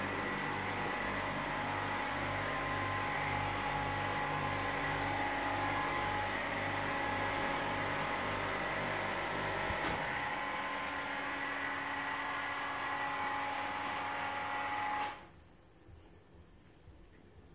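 A machine's steady hum and whine with a low throb; the throb drops away about ten seconds in, and the whole sound cuts off suddenly near the end, leaving faint room noise.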